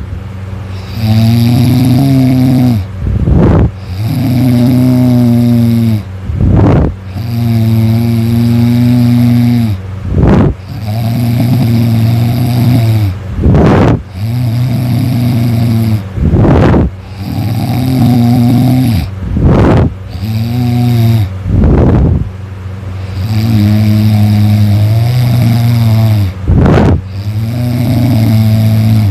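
A person snoring loudly in a steady rhythm, about one breath every three seconds. Each breath is a longer droning, buzzing tone followed by a short harsh rasp.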